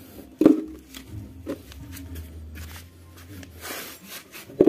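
Handling noises on a concrete workshop floor: a sharp knock about half a second in, a lighter knock a second later, a brief rustle near the end and another knock at the close, over a low steady hum.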